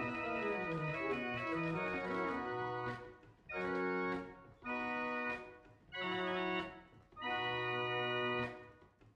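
Pinned-barrel mechanical organ playing: a running passage of notes, then four held chords with short breaks between them, the last held longest before the sound dies away.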